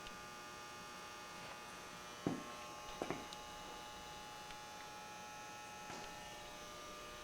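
Steady low electrical hum, with a couple of brief soft knocks about two and three seconds in.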